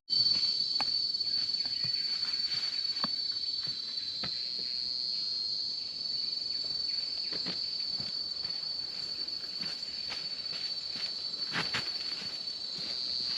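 Steady, high-pitched drone of tropical forest insects, one unbroken tone with no pulsing, with scattered short knocks.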